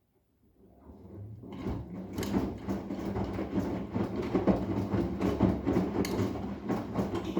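Arçelik 10121 washing machine starting its drum: the motor hum comes up from silence over about a second and a half, then runs steadily while the laundry and water churn with irregular knocks.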